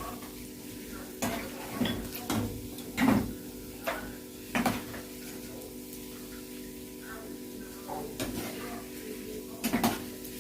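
Zalabia dough balls frying in hot oil while a utensil turns them, knocking against the pot several times at irregular intervals, over a steady hum.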